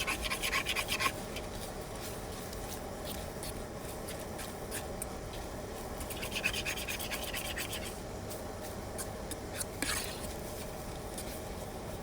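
A utensil scraping and stirring food around in a titanium skillet, in scratchy rubbing bursts: one at the start, a longer one about six to eight seconds in, and a short one near ten seconds.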